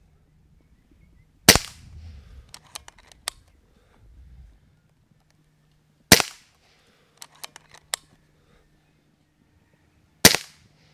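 Kral Puncher Breaker .22 PCP air rifle firing three shots, about four and a half seconds apart. After each of the first two shots comes a quick run of four light clicks as the action is cycled for the next pellet.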